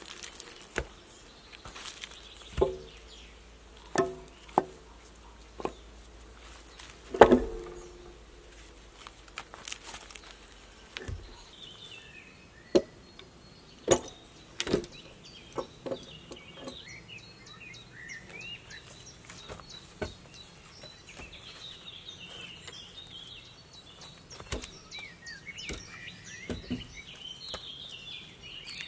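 Irregular knocks and clunks, a dozen or so, the loudest about seven seconds in, with birds chirping in the background from about twelve seconds in.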